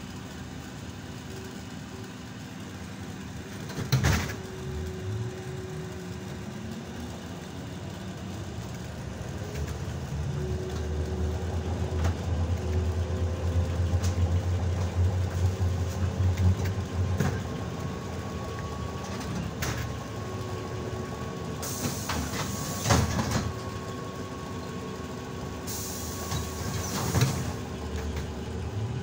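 ZiU-682G trolleybus running, heard from on board: a steady electrical whine, with the motor's pitch rising as it moves off. It gives a few sharp clunks and two bursts of air hiss in the second half.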